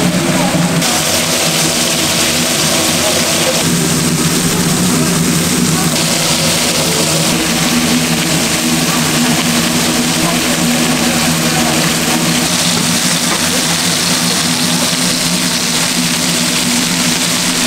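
A steady machine hum with a loud hiss over it, whose tone changes abruptly a few times.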